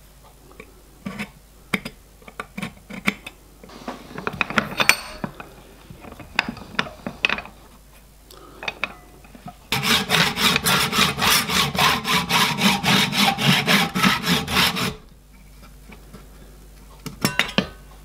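Hacksaw cutting through metal plates clamped in a bench vise: a run of rapid, even strokes for about five seconds in the middle. Before it come scattered clicks and scrapes of tools being laid on the work, and a few more clicks near the end.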